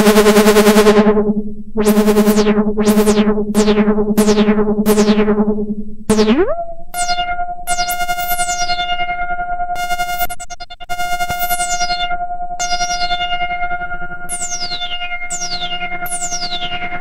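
Mode Machines Synthlab SL1 analog synthesizer sounding as its knobs are turned: a steady buzzing tone, then a run of short repeated notes that lose their brightness quickly. About six seconds in the pitch glides upward into a steady higher drone, over which repeated falling filter sweeps sound.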